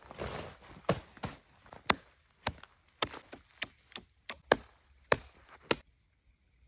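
A hatchet chopping at the ice of a fishing hole: about a dozen sharp, irregular blows, roughly two a second, that stop shortly before the end. Near the start there is a brief rustle of tent canvas.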